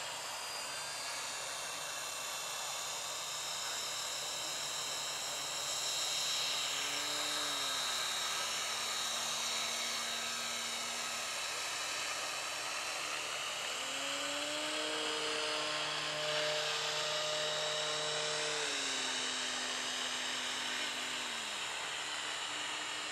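Radio-controlled model airplane's motor and propeller whining in flight, the high pitch slowly rising and falling as the plane passes and circles. A few lower held tones slide from one pitch to another in the middle.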